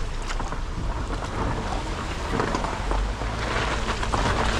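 Car driving slowly over a rough, rocky dirt road, heard from inside the cabin: a steady low rumble with tyres crunching and crackling over gravel and stones.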